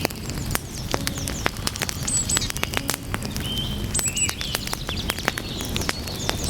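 Wood fire crackling and popping, many sharp irregular snaps over a low steady rumble of the flames. Short high chirps and whistles sound through it, most around two to four seconds in.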